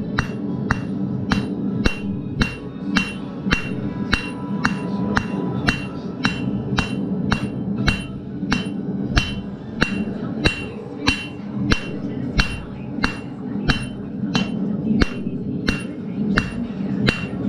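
Hand hammer striking a glowing mild-steel bar on an anvil in a steady rhythm, a little under two blows a second, each blow ringing briefly, as the bar is drawn out to a point. Radio music plays underneath.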